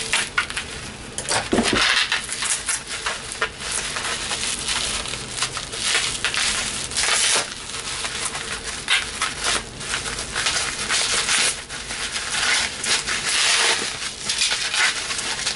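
Packing material rustling and crinkling in the hands as hot sauce bottles are dug out of a shipping box and unwrapped: continuous irregular crackling with many sharp little crackles.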